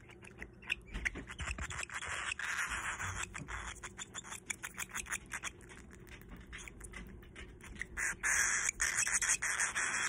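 Baby cockatiel begging and gulping as it is hand-fed formula from a feeding syringe: a fast run of raspy clicks and hissing chatter, louder about eight seconds in.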